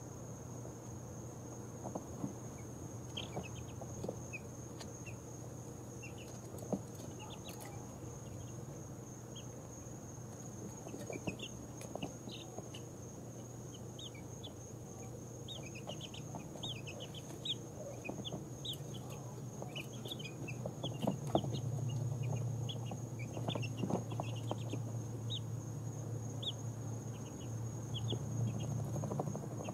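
Two-week-old chicks of mixed breeds peeping softly as they settle to sleep: short high chirps come scattered throughout and grow busier in the second half, over a steady low hum and a constant thin high tone.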